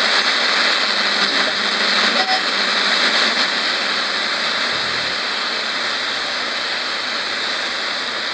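Steady static hiss from a tabletop radio as its tuning dial is turned slowly by hand, sweeping between stations.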